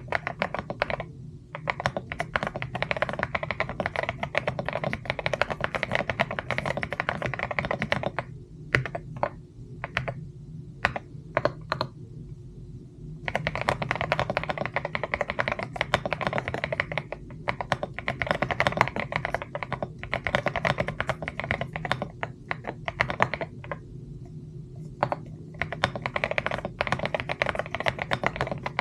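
Fast typing on a mechanical keyboard: a dense run of key clicks that thins to scattered single keystrokes for a few seconds around the middle, then picks up again, with short pauses about a second in and near the end. A steady low hum runs underneath.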